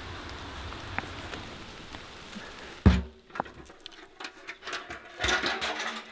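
A steady hiss, cut off about three seconds in by a sharp, heavy knock; then scattered small knocks and clinks, and a short rush of water near the end, from a wooden well and its metal bucket being used for washing.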